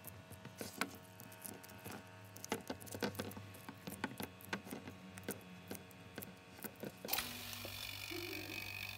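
Irregular crackling and small sharp clicks as gloved fingers press and smooth a sheet of carbon fibre prepreg down into a mould. About seven seconds in, this gives way to a steady background hiss.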